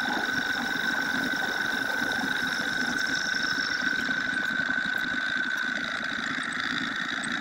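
Homemade metal lathe running steadily under its salvaged electric lawnmower motor and VFD controller, with a steady high whine over the machine noise.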